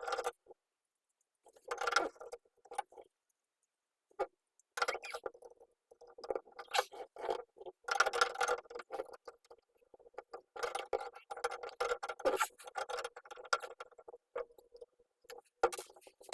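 A new Delta shower faucet handle being wiggled onto its valve stem and fastened: irregular clicks and scrapes of hard parts, in clusters with short silent gaps.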